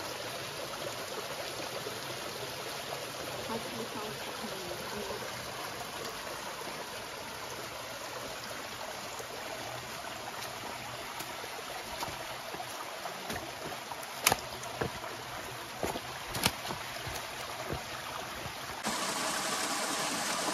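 A small mountain stream running and trickling over rocks, a steady rush of water. A few sharp knocks stand out in the second half, and the water sound gets louder near the end.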